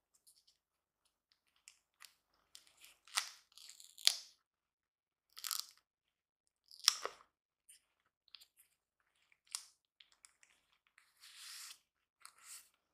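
Thin plastic film crinkling and crackling in short, irregular bursts as a smartphone's clear protective sleeve is handled, its tape seal peeled and the sleeve pulled open; the sharpest crackles come about four and seven seconds in.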